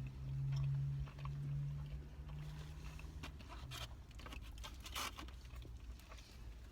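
A low, closed-mouth hum of about three seconds, stepping slightly in pitch, then scattered soft clicks and crackles of eating: chewing and handling food and wrappers.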